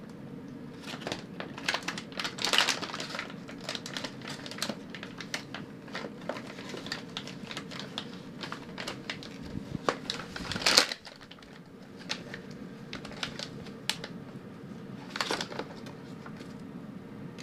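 Clear plastic gift packaging being picked at and torn open by a monkey's hands: an irregular run of crackling and crinkling, with louder crinkles about two and a half seconds in, about eleven seconds in (the loudest) and about fifteen seconds in.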